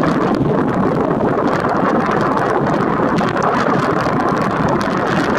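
Steady jet noise of a departing Airbus A320-214 climbing out after takeoff, its CFM56-5B turbofans at climb power, with wind buffeting the microphone.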